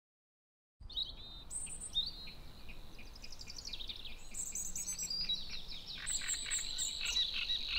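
Birds chirping in quick series, with a steady high insect trill that grows stronger toward the end. The sound cuts in suddenly out of silence about a second in.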